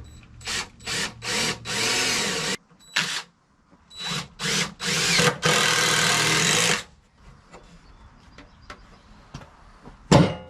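Power drill driving screws into wood: a few short trigger pulses, then a longer run, done twice, with the motor pitch rising and falling. A single sharp knock comes near the end.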